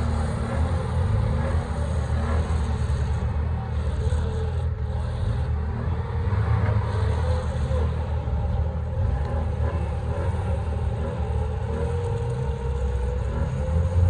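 Vehicle driving: a steady engine and road rumble, with a faint wavering whine above it.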